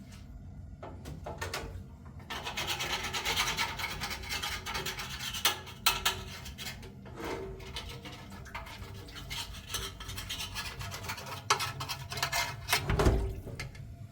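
Rough scraping and rubbing in uneven strokes, with a few sharp knocks and a dull thump near the end.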